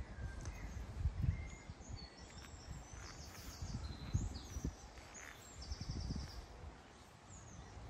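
Outdoor ambience of small birds chirping and trilling, with occasional low thumps from walking.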